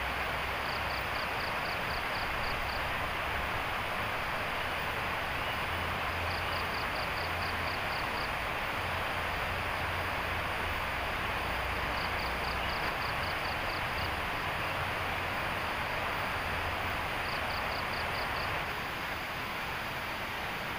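Outdoor forest ambience: a steady rushing hiss, with a high chirping call of about nine quick pulses that comes four times, roughly every five to six seconds. The hiss drops a little near the end.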